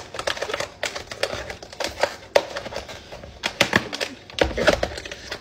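Clear plastic lid being pressed and snapped onto a plastic meal-prep container: a run of sharp clicks and crackles.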